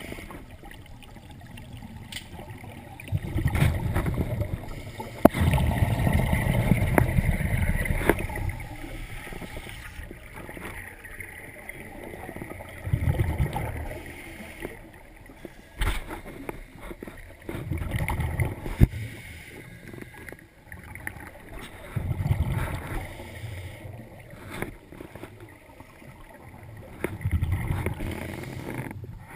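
Scuba regulator exhaust bubbles rumbling in bursts every few seconds as a diver breathes out, heard on an underwater camera. A few sharp clicks come in between.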